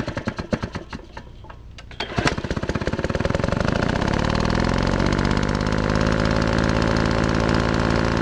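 An engine cranking with uneven, rapid chugs, then catching a little after two seconds in and running steadily, rising slightly in speed before it settles.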